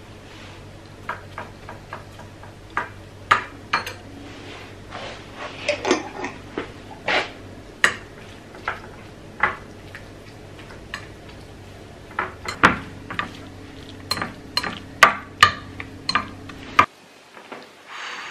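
Chopsticks clinking and scraping against a ceramic bowl as food is stirred, in irregular sharp clinks, over a steady low hum that cuts off suddenly near the end.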